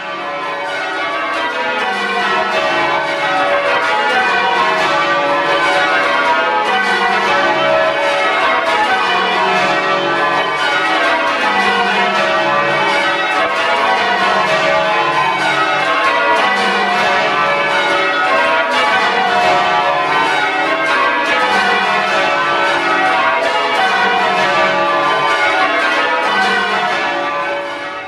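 A ring of twelve church bells ringing changes, loud and close in the belfry: an unbroken stream of bell strikes, each round stepping down in pitch from treble to tenor and repeating.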